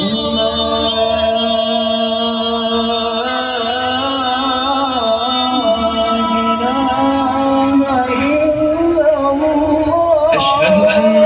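Loud music with a male voice singing, played through a large 'sound horeg' carnival sound system.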